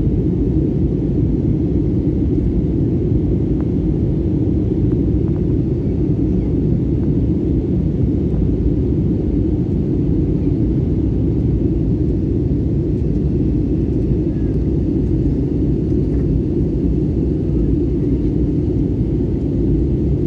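Jet airliner cabin noise in flight: the engines and rushing airflow make a steady, even low rumble.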